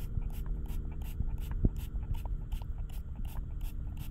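Small plastic pump spray bottle squirting water in quick repeated sprays, about three a second, over a steady low rumble.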